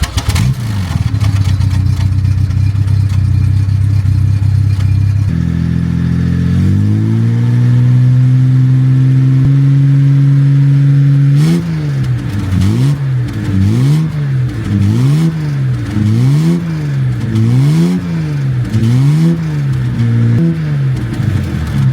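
Car engine idling, then settling at a higher steady speed about five seconds in, and from about halfway on revved in repeated quick blips, rising and falling about once a second.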